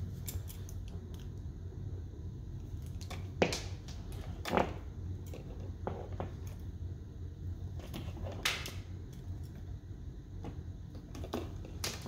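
Insulated solid copper house wires being pulled out of a plastic electrical box and straightened, scraping and clicking against the box and each other in scattered bursts, the loudest about three and a half, four and a half and eight and a half seconds in. A low steady hum runs underneath.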